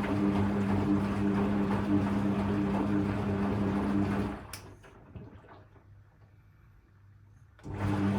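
Hoover Electra 535 washing machine tumbling during a rinse: the drum motor hums steadily over water sloshing in the drum. About four seconds in it stops with a click, leaving near silence for about three seconds, then the motor starts up again, the pause between tumbles.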